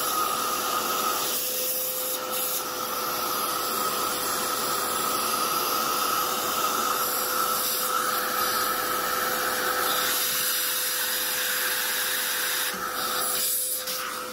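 Vacuum cleaner running with its hose nozzle held in an espresso grinder's burr chamber, sucking out loose coffee grounds: a steady rushing hiss with a constant motor whine. Near the end the sound dips and breaks up as the nozzle is pulled away.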